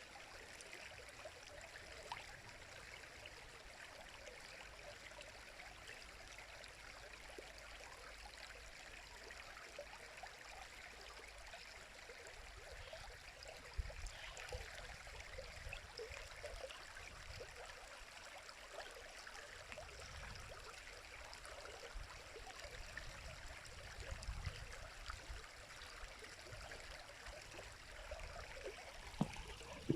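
River water flowing steadily, a faint continuous rush with fine burbling, and a few brief low rumbles partway through.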